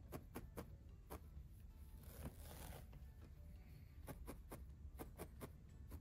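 Felting needle stabbing repeatedly through wool locks into the nest, a run of faint quick ticks at about three to four a second. The ticks pause for a couple of seconds in the middle, where there is a brief rustle of wool, then start again.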